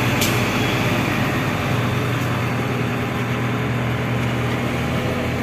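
Diesel dump truck engine running steadily at low speed as the truck creeps forward, with one short sharp tick just after the start.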